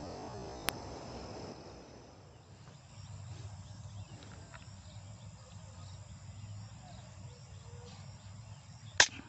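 Insects chirping over quiet outdoor ambience, with one loud, sharp crack near the end.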